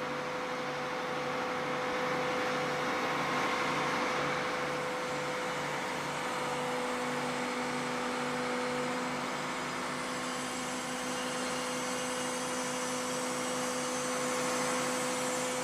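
Aerial-ladder fire truck running, with a steady machine whine over a low throb that pulses about twice a second; a second, lower hum joins about six seconds in.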